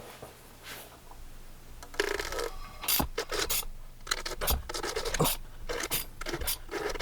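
Irregular scraping, rubbing and sharp knocks of hand tools worked against metal in an engine bay, starting about two seconds in.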